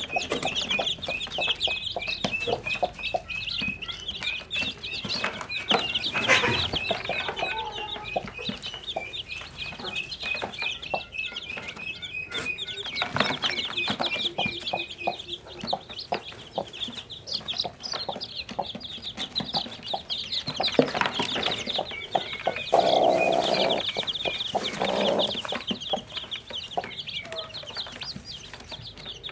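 A brood of newly hatched chicks peeping shrilly and without pause, with a broody hen's lower clucks coming through now and then, loudest near the end. Straw rustles as the chicks are handled.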